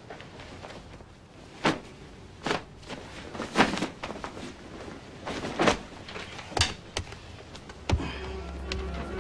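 A series of about eight sharp knocks at uneven intervals, some with a short ring after them. Near the end low music comes in.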